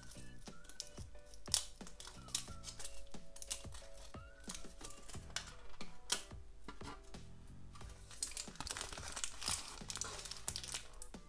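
Foil wrapper of a giant chocolate egg crinkling and tearing as it is peeled off by hand, with sharp crackles throughout and a dense burst of crinkling about nine seconds in, over soft background music.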